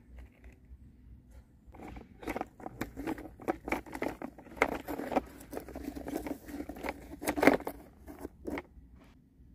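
Plastic toy fire truck moved by hand across dry soil: irregular crunching and scraping of wheels and plastic on dirt, with many small knocks, starting about two seconds in.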